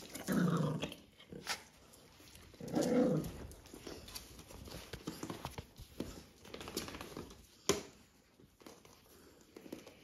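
A dog growls twice in short bursts during play, in the first few seconds, followed by soft scuffling and a single sharp click about eight seconds in.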